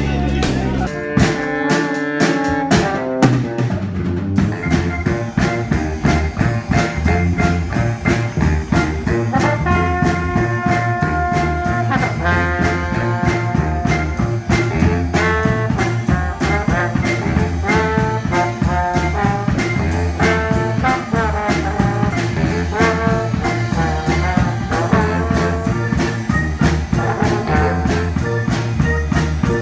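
Swing-style jazz with trombone and other brass over a steady drum-kit beat.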